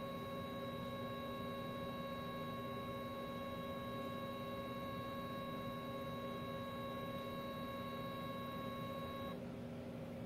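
Electric motor spinning a ball-chain kinetic sculpture: a steady electric whine over a low hum. The higher part of the whine cuts off abruptly about nine seconds in, while the low hum carries on.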